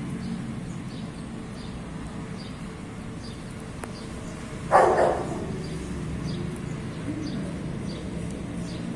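A dog barks once about five seconds in, the loudest sound here, over a steady low traffic hum. Faint scattered ticks come from a cat eating wet food.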